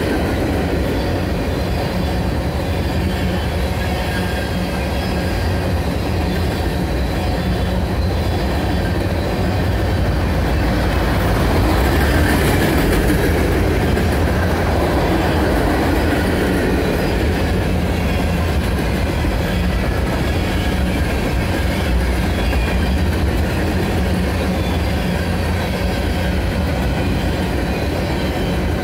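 Freight cars (open-top hoppers and gondolas) of a CSX manifest train rolling past at close range, their wheels clattering steadily on the rails. A brief high-pitched wheel squeal comes about twelve seconds in.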